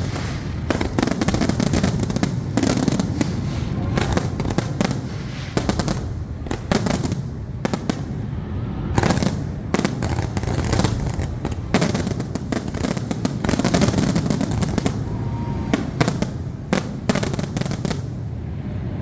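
Fireworks finale: a rapid, unbroken barrage of aerial shell bursts, with many sharp bangs a second over a continuous rumble and crackle.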